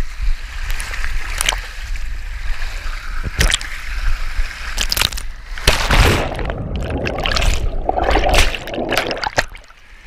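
Water rushing and sloshing hard around a camera riding down a water slide, with several sharp knocks and splashes along the way; the rush stops suddenly near the end as the rider comes to rest in the run-out pool.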